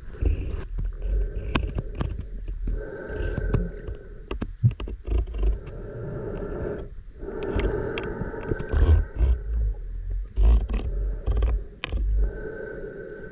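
Muffled underwater sound of a freediver swimming: water rushing past the camera, uneven low thumps and rumbling, and scattered sharp clicks.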